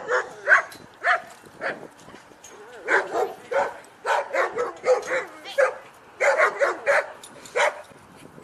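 Dog barking repeatedly: a few single barks, then quick runs of barks from about three seconds in.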